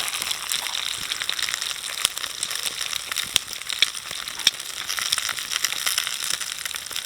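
Chips frying in hot oil: a steady sizzle with frequent crackles and pops, a few of them sharper and louder.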